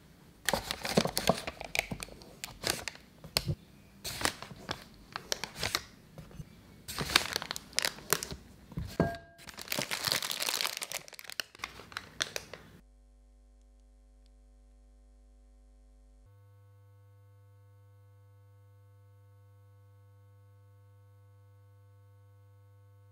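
A thin plastic piping bag crinkling and crackling in irregular bursts as it is handled and fitted into a glass; the crackling stops about thirteen seconds in. Only very faint sustained music tones follow.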